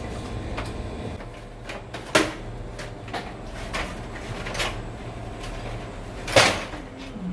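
A series of sharp plastic clicks and knocks, two of them much louder, about two seconds in and again near the end, over a steady low hum, like the casing of a wall-mounted air conditioner being handled and opened.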